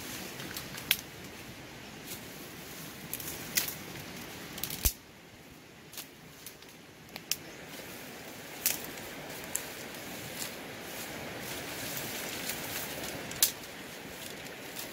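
Leaves and stems rustling steadily as a person pulls and works through dense undergrowth by hand, with about ten sharp snaps and clicks of breaking twigs and stems scattered through it.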